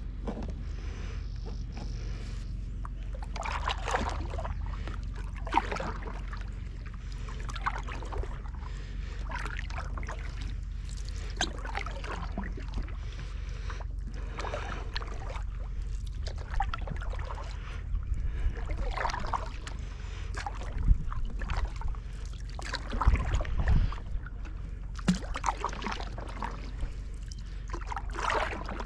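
Kayak paddle strokes in calm water: the blades swish and splash in, one stroke every couple of seconds, over a steady low rumble. A few low knocks come about two-thirds of the way through.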